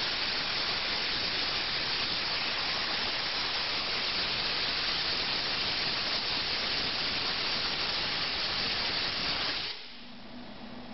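Plasma cutter torch on a CNC table hissing steadily as it tries to fire, then cutting off abruptly near the end and leaving a low hum with steady tones. The torch is not cutting properly: it pulls away from the metal.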